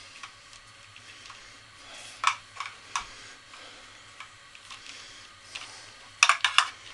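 Scattered sharp clicks and light knocks of small objects being handled, with a louder click about two seconds in and a quick run of clicks near the end.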